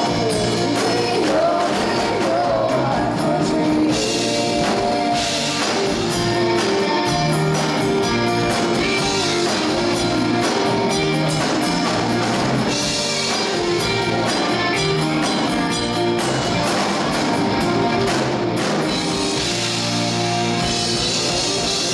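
A live band plays an up-tempo rock song on drum kit, electric guitar and acoustic guitar. A woman's singing voice is heard over it for the first few seconds, then the band carries on.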